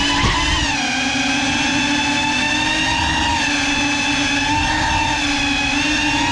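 Small FPV drone's motors and propellers whining steadily, the pitch dipping and rising a little as the throttle changes.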